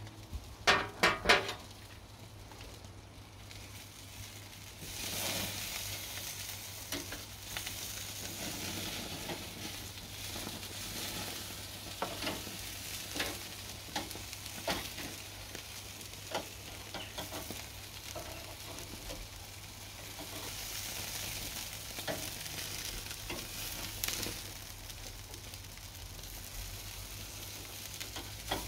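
Burgers and chicken sizzling on a barbecue grill, a steady hiss with scattered crackles of spitting fat, stronger from about five seconds in. A brief, loud pitched sound about a second in stands out above it.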